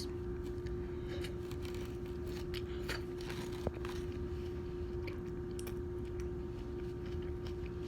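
A person chewing a mouthful of lo mein noodles and vegetables, with scattered small wet clicks and faint crunches, over a steady electrical hum.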